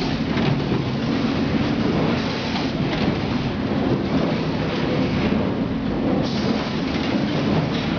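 Bag filling and packaging machine running steadily: a dense, even mechanical noise with a low hum underneath.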